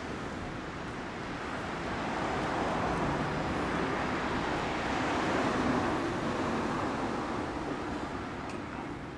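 Honda Monkey's 108cc single-cylinder four-stroke engine idling through a Moriwaki exhaust, a steady running sound that swells a little in the middle and eases near the end.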